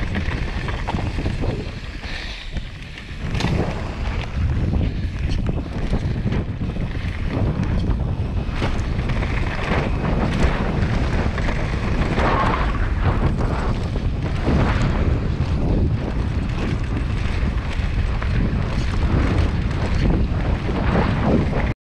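Wind buffeting the camera microphone of a mountain bike descending a dirt trail, over the rumble of tyres rolling on dirt and scattered knocks as the bike hits bumps. The sound cuts off abruptly near the end.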